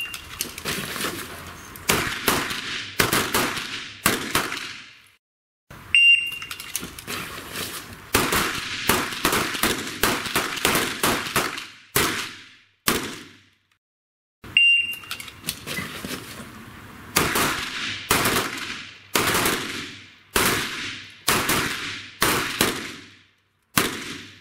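Pistol shots fired in three rapid strings, each shot ringing out with an echo. A short electronic start beep comes before each string.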